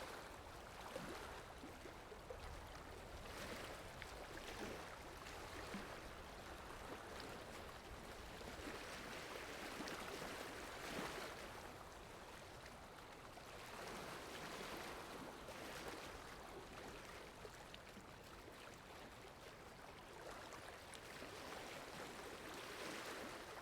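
Faint water wash, waves lapping and splashing, a steady rushing that swells and eases every few seconds.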